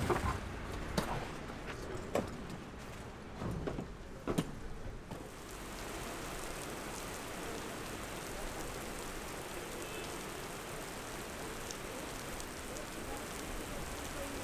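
A backpack pulled out of a coach's luggage hold, with a few knocks and thuds over a low rumble; then, about five seconds in, steady rain falling on a wet paved street.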